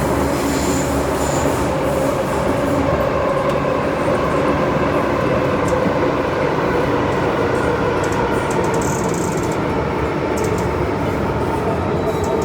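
Interior running noise of an MTR Metro-Cammell DC electric multiple unit travelling through a tunnel: steady wheel and track rumble under a motor whine that slowly falls in pitch.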